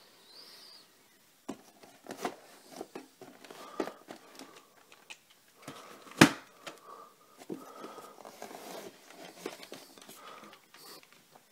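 Handling noise from VHS tapes on a shelf: a string of clicks, knocks and scrapes as the cases are touched and slid out, with one sharp, much louder knock about six seconds in.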